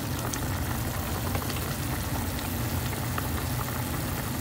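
Pot of moringa-leaf soup boiling on an induction hob over a steady low hum, with a few faint clicks of a metal spoon against the pot.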